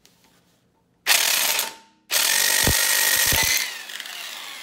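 Electric impact wrench hammering at the bolt on a two-stroke jet ski engine's flywheel. There is a short burst about a second in, then a longer burst with a steady whine and a few heavy knocks that eases off near the end as the fastening gives way.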